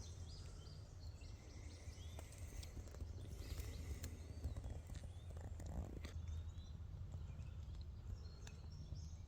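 Faint wild birds chirping and whistling in short scattered calls over a steady low background hum.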